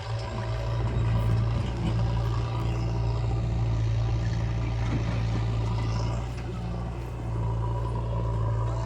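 Heavy diesel engine of earth-moving or farm machinery running steadily with a deep, even hum, easing off slightly about six seconds in and picking up again a second later.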